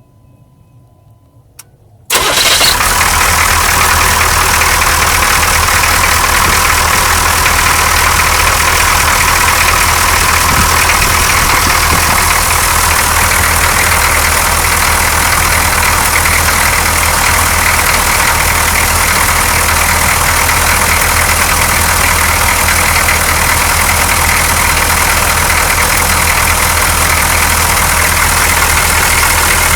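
A 6.2-litre V8 diesel truck engine starts on a cold morning, catching abruptly about two seconds in despite an empty fuel line to the injection pump. It then idles steadily and evenly, with no sign of the rough idle it had before.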